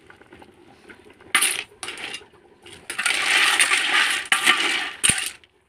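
A metal ladle scraping and stirring against the inside of an aluminium cooking pot, in a few short strokes and then a longer stretch of scraping about three seconds in. It ends with a sharp knock against the pot.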